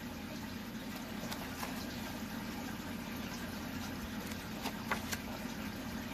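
Paper pages of a colouring book being turned by hand, giving a few faint rustles and soft ticks over a steady background hiss.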